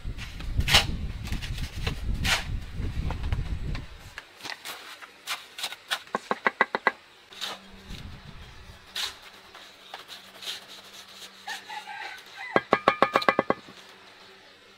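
Two short bursts of rapid pulsed animal calls, each about a second long, one midway and one near the end, after low rumbling and scattered knocks in the first few seconds.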